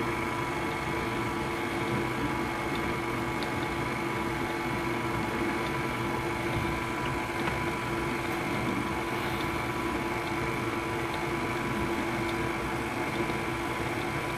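KitchenAid stand mixer running on low speed, its motor giving a steady hum with a few steady whining tones, as it beats thick cream cheese batter.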